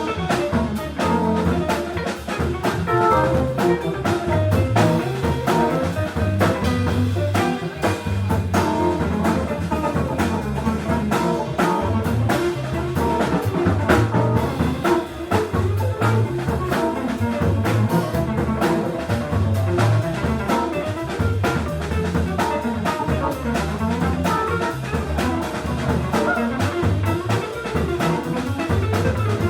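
Background jazz-funk music with a steady drum beat, bass line and brass.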